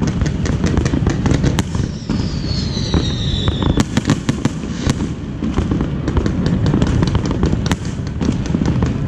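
Fireworks display: rapid crackling and popping bursts over a steady low rumble of explosions, with a whistle falling in pitch about two to four seconds in.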